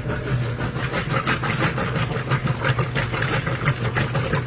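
Washing machine running on its spin cycle to drain: a steady low motor hum with irregular rattling and clicking, as it pumps out the water it had been holding.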